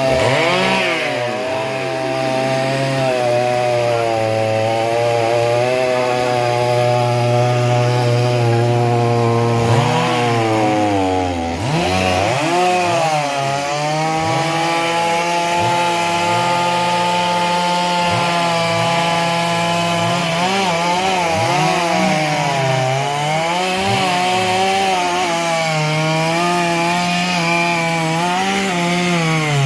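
Two-stroke chainsaw running and cutting wood. The engine's pitch dips and recovers several times as the chain bogs in the cut and is revved up again, with the biggest dips about ten seconds and twenty seconds in.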